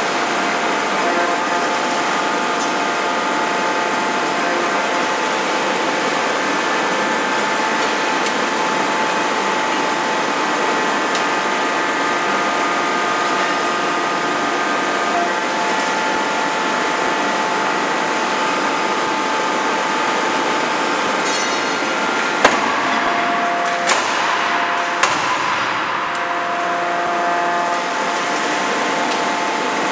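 Steady machinery noise of a forging production line, with several fixed whining tones over a constant rush. About three quarters of the way through come three sharp knocks, a second or so apart.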